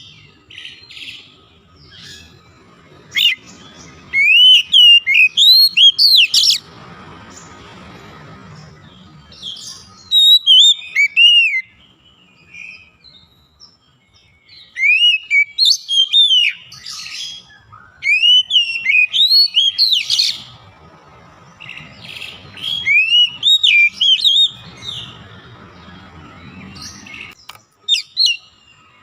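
Oriental magpie-robin (kacer) singing loud, fast runs of rising and falling whistled notes in bursts of a second or two, several seconds apart. A faint hiss sounds between the phrases.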